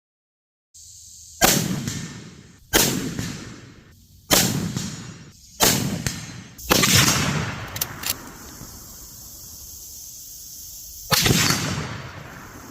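Six rifle shots from a Swiss ZFK-55 straight-pull sniper rifle in 7.5×55mm Swiss. Five come in quick succession, about 1.3 seconds apart, then a sixth follows after a pause. Each shot rings out and fades over about a second.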